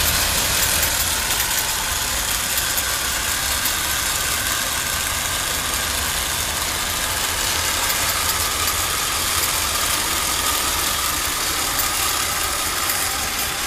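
Lionel postwar O gauge 2026 prairie 2-6-2 toy steam locomotive and its sheet-metal passenger cars running on three-rail track: a steady rumble of metal wheels on the rails with an electric motor hum.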